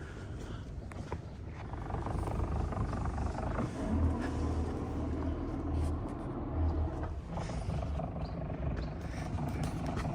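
Sailboat's inboard engine running with a steady low rumble, getting louder about two seconds in.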